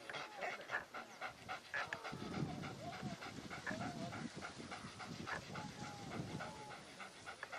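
Leashed hunting dogs panting in quick breaths, with a few short high whining calls.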